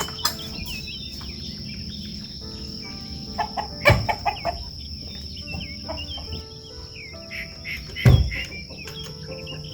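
Chickens clucking among many small bird chirps, over a steady high insect drone. Two sharp knocks, about four seconds and eight seconds in.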